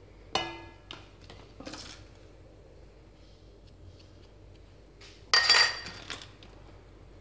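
Wire whisk clinking against a stainless steel mixing bowl: a light ringing clink just after the start, a few small ticks and scrapes, then a louder ringing clank a little over five seconds in.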